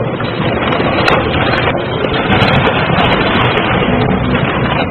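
A crane's clamshell grab crushing and tearing apart the superstructure of a wooden Miki-class tug: loud, steady rumbling noise with scattered sharp cracks of breaking timber and metal, about one to two seconds apart.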